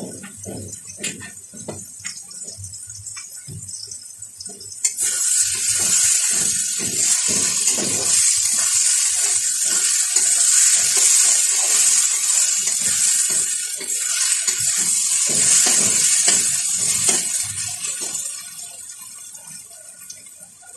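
Onion, tomato and green chilli masala in a metal kadai breaks into loud sizzling about five seconds in as liquid hits the hot pan, with repeated scrapes of a steel spatula stirring it. The sizzle fades near the end.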